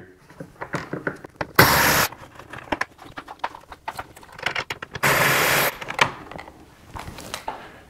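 Ratchet backing out 7mm bolts: two short bursts of fast ratcheting, about a second and a half in and again about five seconds in, with light clicks and knocks of handling between.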